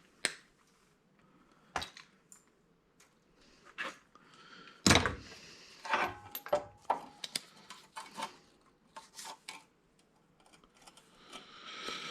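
Scattered metallic clinks and knocks of sheet-metal and parts being handled during a teardown, with one heavier knock about five seconds in and a few short ringing clinks after it.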